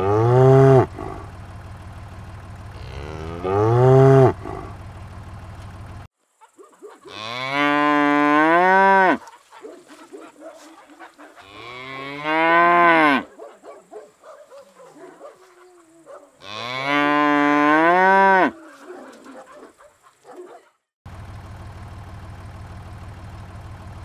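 Cow mooing: two short moos over a steady low hum, then three long moos of about two seconds each, each rising in pitch at the start.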